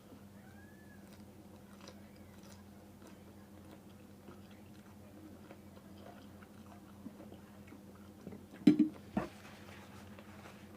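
Quiet chewing and eating of noodles, with small scattered clicks over a faint steady hum, and two sharp knocks close together about nine seconds in.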